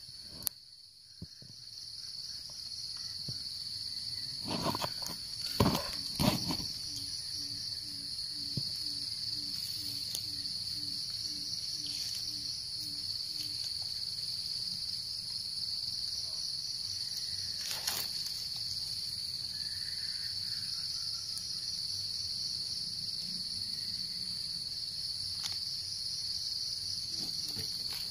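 A steady, high-pitched insect chorus chirring throughout. A few sharp knocks and rustles stand out about five to six seconds in, and a low note repeats about twice a second for several seconds after that.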